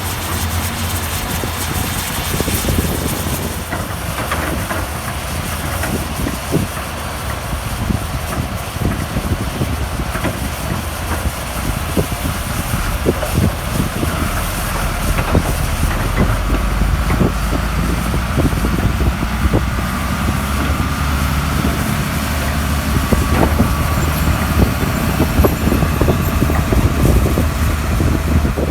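Heavy diesel construction machinery running: a steady low engine drone with scattered knocks and clanks, growing louder about halfway through.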